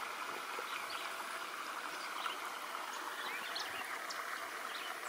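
Outdoor ambience: a steady rush of running water with scattered short, rising bird chirps.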